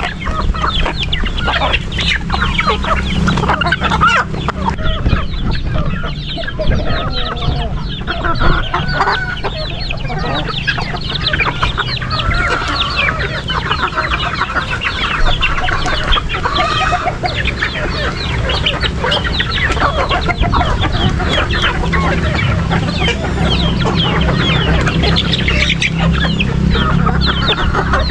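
A flock of young chickens clucking and calling as they crowd in to feed, with many quick taps of pecking at the ground, over a steady low rumble.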